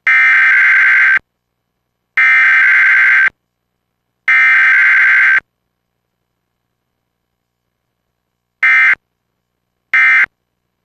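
Emergency Alert System SAME digital data bursts from a radio broadcast. First come three header bursts, each about a second long and a second apart. After a pause of about three seconds come two short end-of-message bursts near the end. No attention tone sounds between header and end-of-message, as is usual for a required weekly test.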